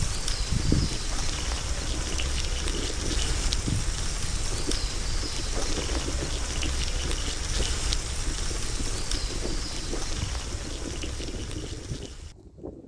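Steady rain pattering on leaves and leaf litter, a continuous hiss with light scattered drops and a low rumble underneath, cutting off abruptly just before the end.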